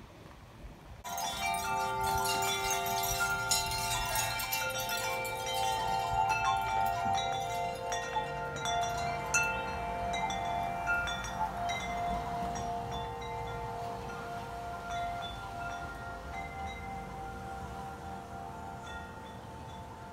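Metal tube wind chimes ringing: many tubes struck at once about a second in, then a few more strikes while the tones ring on and slowly fade.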